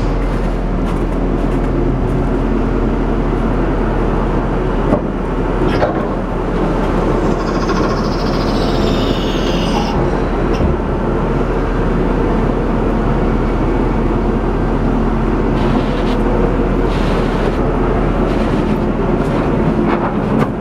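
Diesel engine of a Niigata NR653 rotary snow blower running steadily, with a couple of light knocks about a quarter of the way in and a faint high whine sliding downward around the middle.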